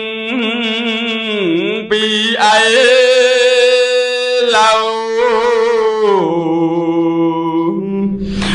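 A man's voice chanting in Khmer smot style, a melodic Buddhist recitation. Each syllable is drawn out on a long, wavering note lasting a couple of seconds, with short breaks between phrases, and the pitch steps down near the end.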